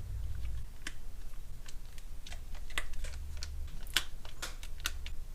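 Small Phillips screwdriver backing tiny screws out of a smartphone's plastic case: scattered light clicks and ticks of the metal tip and plastic parts, irregular, a few a second, over a low steady hum.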